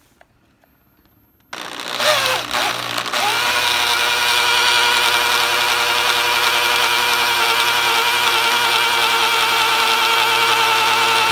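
Corded electric drill run in reverse, turning a Ford big-block 521 stroker's oil pump through a priming shaft down the distributor hole. It starts about a second and a half in, rises in pitch as it spins up, then runs steadily under load, working against the resistance of the pump pushing oil through the engine.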